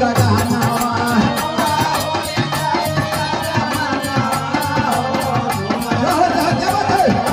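Live North Indian folk song accompaniment: harmonium playing the melody over a steady percussion rhythm.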